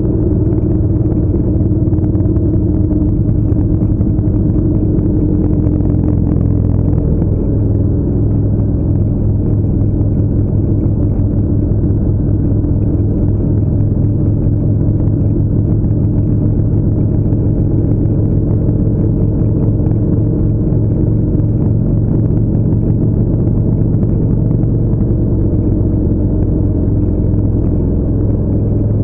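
Motorcycle engine running steadily at highway cruising speed, a continuous deep drone mixed with wind rush on the microphone.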